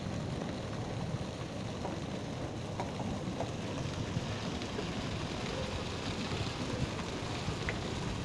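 Hail and heavy rain falling: a steady hiss of rain and water pouring off a roof, with scattered sharp ticks of hailstones striking.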